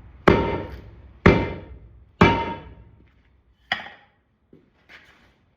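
Heavy hammer blows on metal while hand-mounting a 12-16.5 skid steer tire: three hard strikes about a second apart, each ringing briefly, then a single lighter knock.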